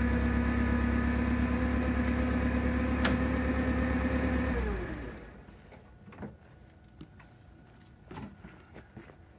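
Nissan H20 four-cylinder propane engine of a TCM FG20 forklift idling steadily, then shut off about halfway through, its note sliding down as it stops. A sharp click about three seconds in, and light knocks and scuffs afterwards as the operator climbs down off the machine.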